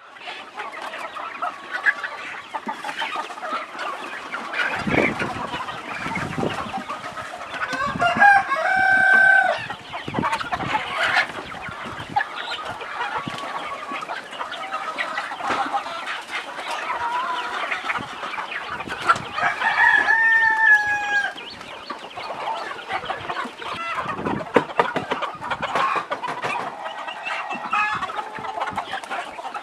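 A flock of free-range chickens clucking continuously, with a rooster crowing twice: about eight seconds in and again around twenty seconds.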